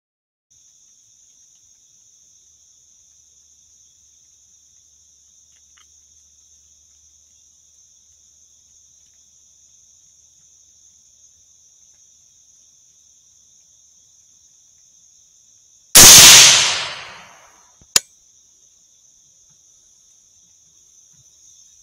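A single suppressed rifle shot, sudden and loud, dying away over about a second and a half. A short sharp click follows about two seconds later. A faint, steady, high-pitched insect drone runs underneath.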